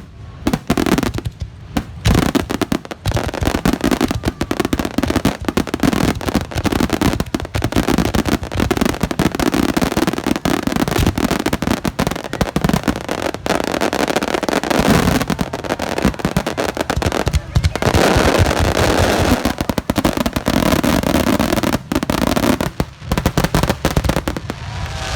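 Starmine fireworks barrage: aerial shells bursting in rapid, overlapping succession, a near-continuous run of loud bangs.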